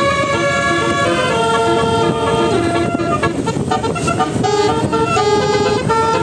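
Bus telolet horn, a set of multi-tone air horn trumpets, playing a melody of held notes that step to new pitches every half second or so, often several tones sounding together, over a steady low rumble.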